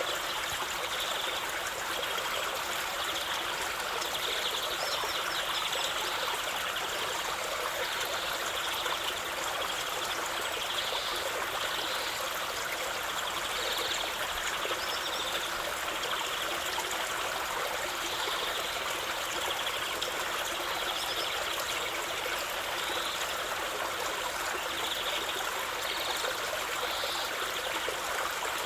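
Running water trickling steadily, an even, unbroken rush with no pauses.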